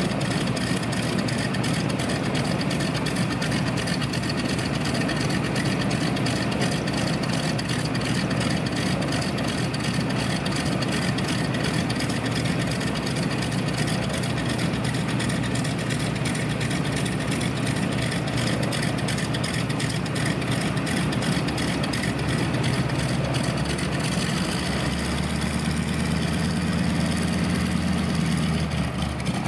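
Ford Trimotor's three radial engines idling with a steady, even pulse. About 24 seconds in the engine note deepens as the aircraft begins to taxi.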